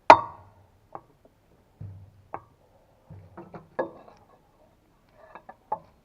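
Hand tools knocking and clinking against metal while working on a forest machine's crane-base bolts. A sharp loud clank rings briefly at the very start, followed by scattered lighter clinks and knocks, some in quick little clusters.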